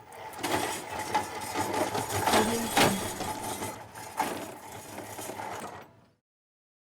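Hospital trolley rolling, its wheels and frame rattling, with a few sharper knocks, the loudest near the middle. It fades out and stops about six seconds in.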